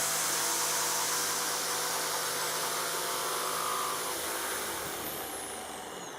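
Electric power-tool motor running steadily, then slowing with a falling whine and fading near the end.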